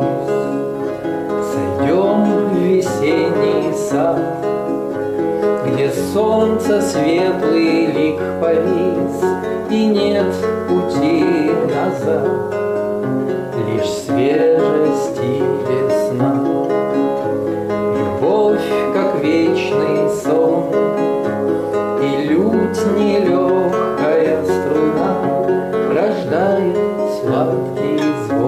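Multi-course lute played solo, a continuous plucked melody moving over changing bass notes.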